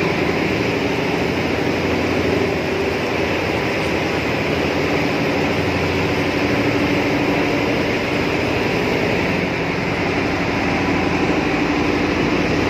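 A machine engine running steadily inside the tunnel: a loud, even drone with a low hum that does not change.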